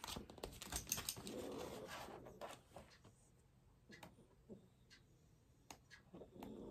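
Pages of a large book being flipped and rustled for about two and a half seconds, then a few faint clicks of handling.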